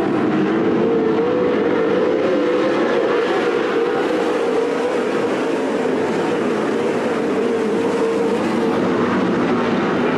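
A pack of 410 winged sprint cars racing on a dirt oval, their V8 engines running hard in a steady, dense drone with a held pitch.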